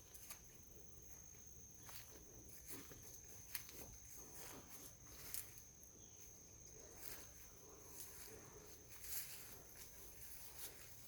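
Near silence outdoors: a faint steady high-pitched tone that stops about nine and a half seconds in, with scattered light clicks and rustles.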